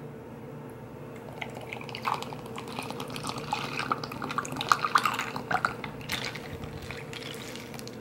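Caramel Premier Protein shake poured from its carton over iced espresso in a cup: a splashing, gurgling pour with small clicks of ice, loudest midway and tailing off after about six seconds.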